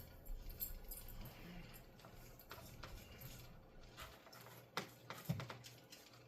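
Faint, scattered light clicks and taps of small objects being handled, over a low hum that stops about four seconds in.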